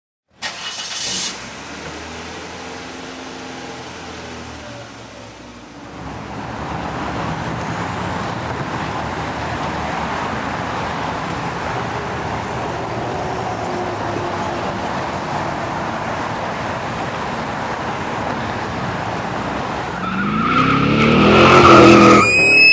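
Car engine starting, idling for a few seconds, then running steadily at speed. Over the last couple of seconds the engine revs up and tyres squeal, louder and louder, leading into a crash.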